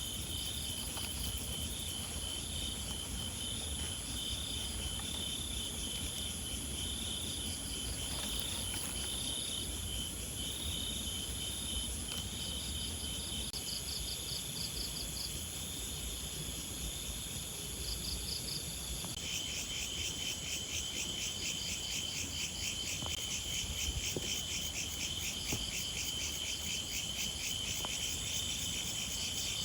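A chorus of insects, crickets among them, trilling steadily at a high pitch. A second, faster-pulsing chirping call joins about two-thirds of the way in.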